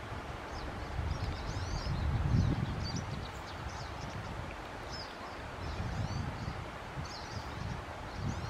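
Small birds chirping and twittering off and on, short high calls, over a low steady rumble of outdoor noise.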